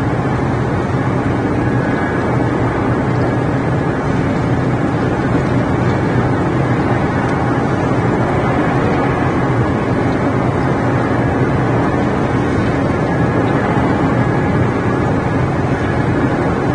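Steady rain, an even rushing noise that holds level throughout with no breaks.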